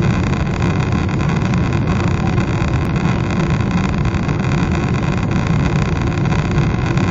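Steady, deep cabin noise of a Boeing 777-300 in flight, heard inside the cabin: the even rush of air past the fuselage mixed with the drone of the jet engines, unchanging throughout.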